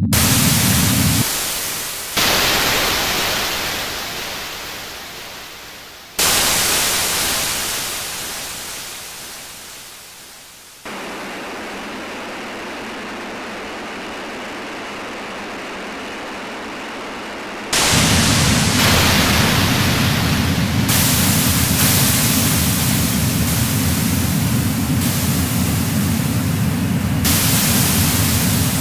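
Harsh noise music made of slabs of static that switch abruptly. Two bursts of full-range hiss each fade away over about four seconds. Then comes a quieter, steadier, narrower hiss, and from about two-thirds of the way in, loud full-range static with a deep rumbling layer beneath, its hissy top end changing in sudden steps every second or two.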